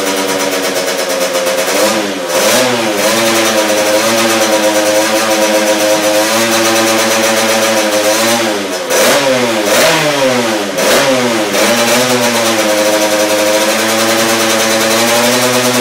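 Honda CR80 two-stroke single-cylinder engine in a Moriwaki MH80R running on its first start after a rebuild. It holds a steady fast idle and is blipped up and down about two seconds in, then again several times between about eight and eleven seconds.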